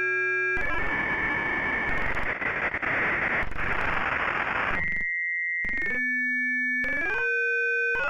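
Computer-synthesized sound made from a fractal's orbit points. A buzzy chord of steady tones gives way to a harsh hiss for about four seconds while the orbit scatters chaotically, and then to short tones whose pitches slide up and down, each cut off abruptly and replaced by the next.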